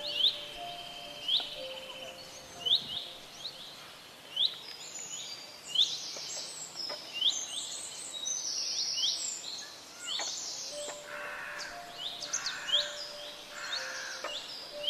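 Birds calling. One bird repeats a short rising chirp about once every second or so, and from about five seconds in other birds add quicker, higher chirps over it.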